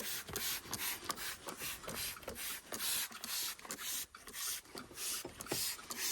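Brush scrubbing lathered cleaner into a car's interior fabric, back-and-forth strokes at about two to three a second.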